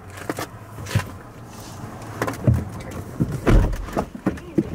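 Knocks, thumps and rustling of people climbing into a car's back seat and handling lidded ice cream cups: about nine separate hits, the heaviest a low thump about three and a half seconds in.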